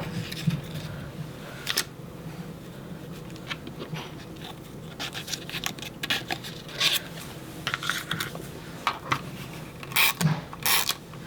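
Paper and cardstock pieces being handled and slid on a scrapbook page: scattered short scrapes, rustles and light taps at an uneven pace, busiest about ten seconds in.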